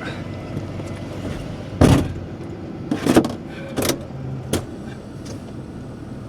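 Steady engine and road rumble inside a moving truck's cab, broken by a few sharp knocks and rattles, the loudest about two seconds in and smaller ones over the next three seconds.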